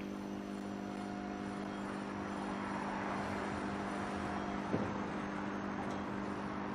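Steady low background hum under a faint noisy rumble, with one faint tick about three quarters of the way through.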